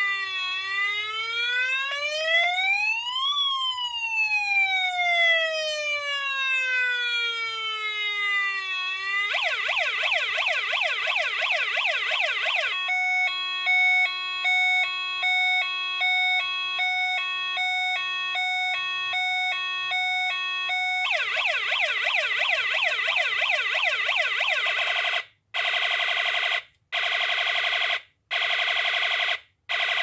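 Small loudspeaker driven by a KD9561 four-sound alarm chip, playing electronic siren tones. First a slow rising and falling siren wail, then a fast warble, then a rapid stepped pattern of several fixed beeping tones, then the fast warble again. From about 25 s on the tone comes in bursts with short gaps of silence about every second and a half.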